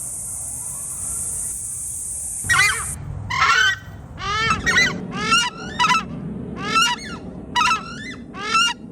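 Crested screamer (southern screamer) calling: a series of about eight loud, goose-like honking calls, each bending in pitch, starting about two and a half seconds in and repeating every half second to a second. Before the calls, a steady high hiss cuts off suddenly.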